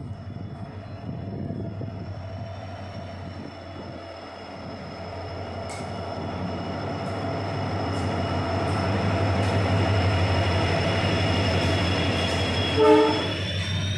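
WDG4D diesel locomotive hauling a freight train, approaching and coming alongside, its engine rumble growing steadily louder under a high steady whine. A short horn blast sounds near the end.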